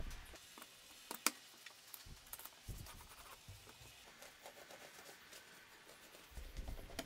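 Light clicks, taps and soft knocks of plywood jig parts and a metal dowel pin being handled and fitted together on a wooden bench, the sharpest click about a second in.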